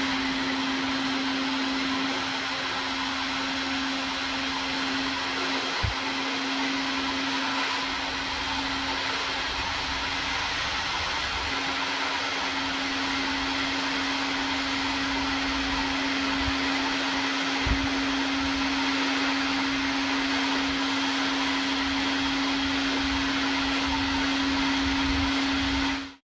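Heat gun running steadily, blowing hot air with a constant motor hum to shrink heat-shrink tubing, and switched off suddenly near the end. A couple of faint knocks are heard along the way.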